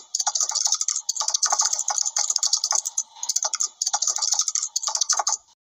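Keyboard typing sound effect: fast runs of key clicks with short pauses between them, cutting off abruptly near the end.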